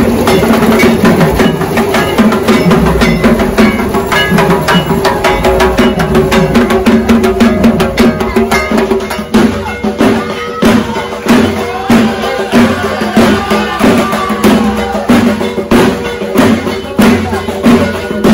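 Dhak, the Bengali barrel drums of Durga Puja, beaten in a fast, dense, loud rhythm over a steady held drone.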